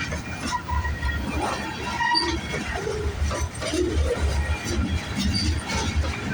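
Freight cars of a CP freight train rolling past: a pulsing low rumble of steel wheels on rail, with scattered clanks, metallic clinks and short squeaks.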